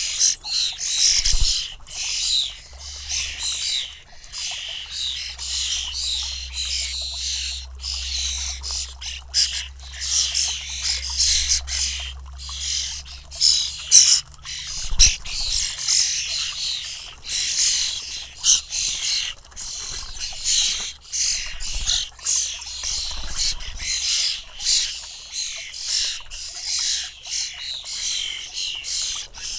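A flock of European starlings, fledglings among them, calling without pause in many overlapping high, raspy notes.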